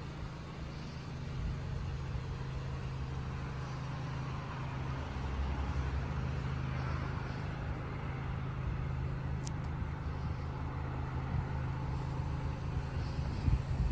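Car engine idling: a steady low hum, with a faint tick about nine and a half seconds in and a couple of low thumps near the end.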